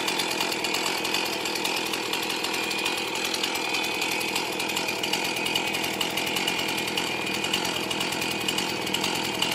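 Stihl MS180 chainsaw's small two-stroke engine idling steadily, with no revving.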